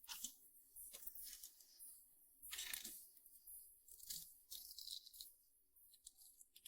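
Faint, irregular rustling and scraping of hands working on a graphics card, a string of short scratchy scrapes.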